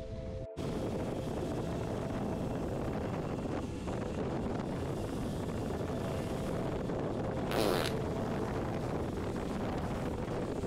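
Steady wind rushing over the microphone of a moving camera, with one short louder rush about two-thirds of the way through; the sound changes abruptly half a second in.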